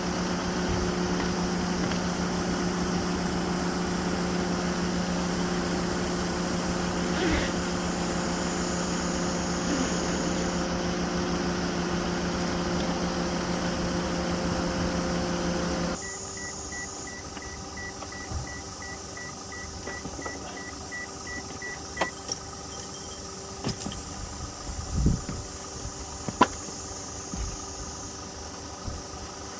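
A steady mechanical hum, like an idling engine or fan, that stops abruptly about halfway through. It is followed by a quieter background with a quick run of short high beeps lasting about six seconds, then a few scattered knocks.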